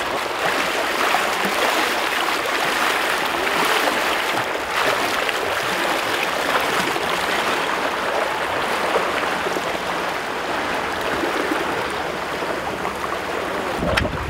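Steady rushing wash of moving water. Near the end, a low rumble of wind on the microphone starts abruptly.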